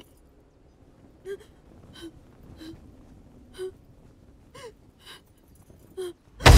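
A badly hurt woman gasping for breath, seven short strained gasps with a whimpering voice in them, about one a second. Loud music cuts in at the very end.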